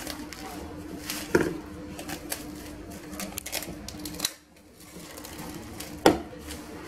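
Clear plastic food wrap crinkling and rustling as hands fold it around a ball of quiche dough, with two sharp knocks, one about a second in and one near the end.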